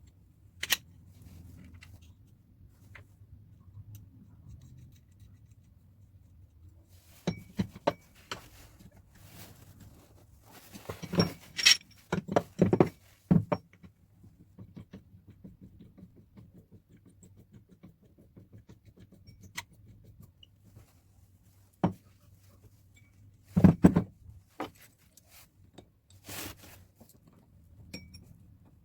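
Irregular clicks, knocks and light scrapes of small metal tool parts being handled on a workbench, with a cluster of louder knocks about halfway through and another near the end.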